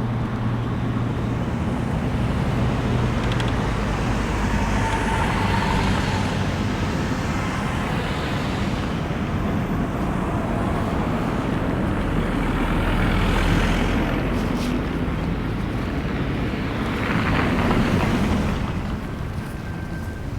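City street traffic: a few vehicles pass one after another, each swelling and fading, over a steady low engine hum.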